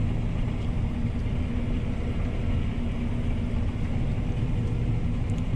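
John Deere T670i combine harvester running steadily while cutting, a constant deep drone with a steady hum through it. Its threshing drum is turning at about 960 rpm, near its top speed.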